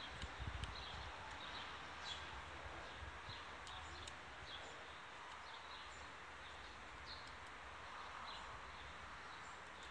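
Faint outdoor background noise with scattered short bird chirps, and a brief low rumble about half a second in.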